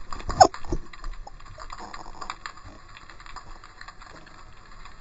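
Underwater noise heard through a GoPro's waterproof housing: a scatter of small clicks and knocks over a low steady hiss, with one louder thump about half a second in.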